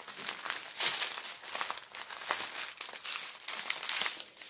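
Clear plastic bags of diamond painting drills crinkling and rustling as they are handled, in irregular crackles.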